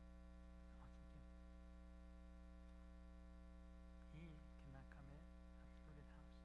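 Steady electrical mains hum at near-silence level, with a faint voice murmuring briefly about a second in and again from about four seconds in.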